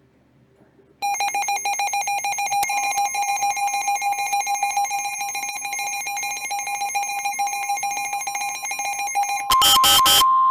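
Electronic alert tones from an emergency broadcast: a loud, steady pulsing tone with high overtones starts about a second in, and a second steady tone joins it. Near the end come three short, very loud data bursts, like the coded header bursts of an EAS/SAME alert.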